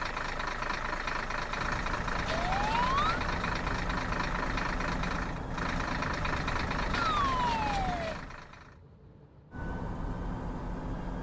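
Cartoon vehicle engine sound effect: a steady engine drone with a rising whine about two seconds in and a falling whine about seven seconds in. It fades out near the end, then starts again a second or so later.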